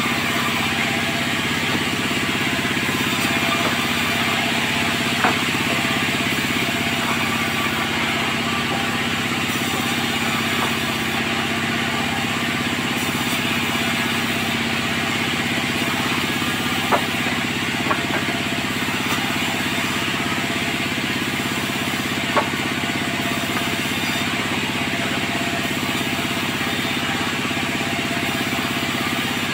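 Sawmill machinery running steadily with an even engine-like drone, broken by a few short sharp knocks.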